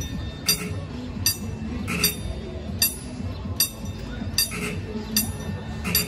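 Locomotive bell ringing in a steady rhythm, a little more than one clear metallic strike a second, each strike ringing briefly, over a low rumble.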